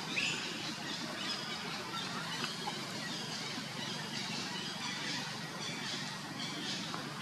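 Steady outdoor background noise with faint, scattered short high chirps and squeaks.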